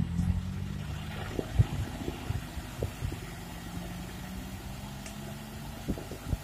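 Dump truck engine running steadily while the hydraulic hoist tips the loaded bed, with a few scattered knocks, the loudest about a second and a half in.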